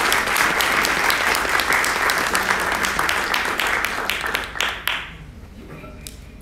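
Audience applause: many hands clapping steadily, dying away about five seconds in with a few last separate claps.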